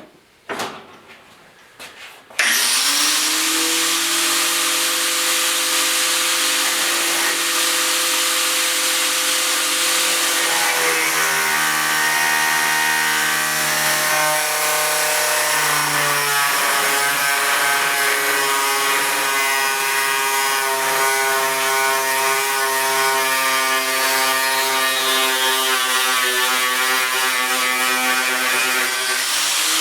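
A small electric grinding machine switches on about two seconds in. Its motor whine rises to speed, then it runs steadily with a strong hiss of steel stock being ground, the whine shifting in pitch partway through as the work is pressed on.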